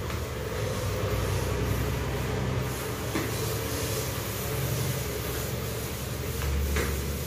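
A steady low mechanical rumble, with two faint short noises about three seconds in and near the end.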